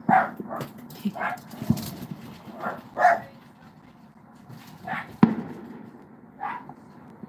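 Dogs barking in short, repeated barks, upset by fireworks going off. Two sharp firework bangs cut in, the louder one about five seconds in.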